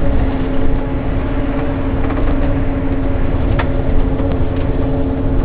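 Cabin noise inside a Mitsubishi Fuso Aero Queen I coach: a steady low rumble with a steady drone from the running bus, and one small click a little past halfway.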